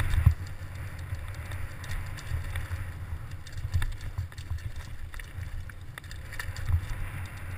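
Giant Faith 2 downhill mountain bike rolling over a rocky dirt trail, heard through a helmet-mounted camera: a pulsing low rumble of wind and trail vibration with scattered clicks and rattles, and a louder knock just after the start.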